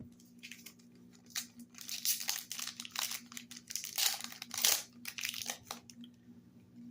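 A foil Yu-Gi-Oh booster pack wrapper being crinkled and torn open by hand: a run of irregular crackles and rips, loudest about four seconds in. A faint steady hum sits underneath.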